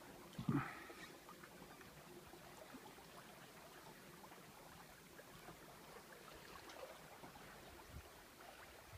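Faint water washing and trickling along the hull of a sailing yacht under way, with one short louder sound about half a second in.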